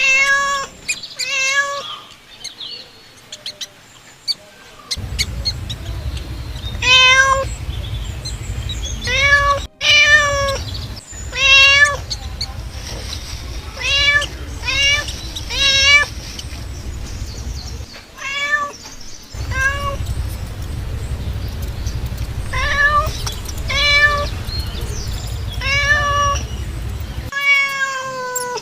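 Cat meowing repeatedly, about fifteen short calls that come singly or in quick runs with pauses between, over a low rumble that stops and starts.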